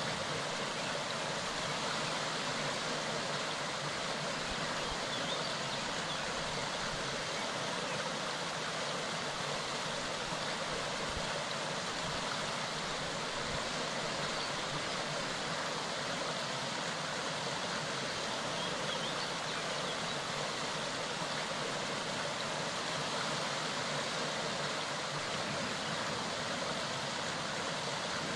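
Clear mountain stream running, a steady, unchanging rush of water.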